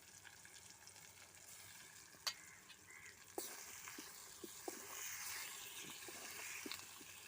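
Cassava (tapioca) pieces frying in oil with onions and curry leaves under a lid: a faint steady sizzle with scattered small pops.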